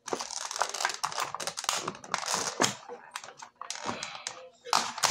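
Clear plastic blister-tray packaging crinkling and clicking as a boxed action figure is worked loose by hand: a quick, irregular run of small clicks and rustles.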